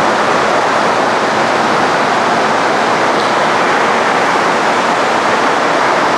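Forrest Model 230 vertical bandsaw running with no workpiece in the blade, its 3/4-inch scallop-edge knife blade travelling at about 3,000 feet per minute. The result is a loud, steady rushing noise.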